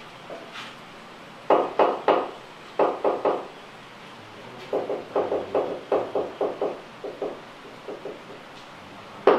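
Hammer knocks in quick bursts of three to about nine strokes, several a second, with short pauses between the bursts.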